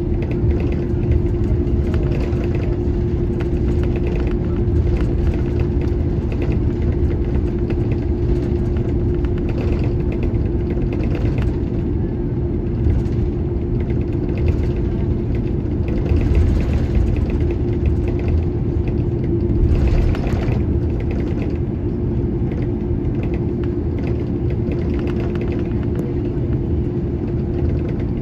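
Airbus A330-300 taxiing, heard from inside the cabin over the wing: a steady engine hum at taxi power over the low rumble of the wheels rolling on the taxiway, with a few brief louder swells.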